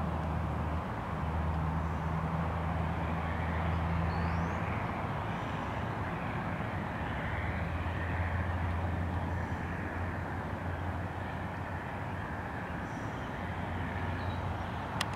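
Distant diesel engines of field spreader buggies running steadily at working speed, a low even drone under a steady rushing noise. A single sharp click comes near the end.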